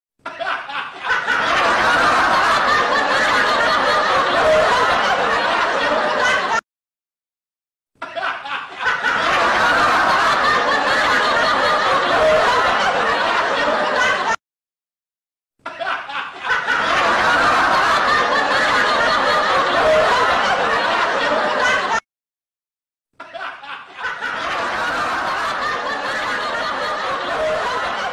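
Non-speech human vocal sounds in one stretch of about seven seconds that repeats four times, each repeat cutting off sharply into about a second of silence.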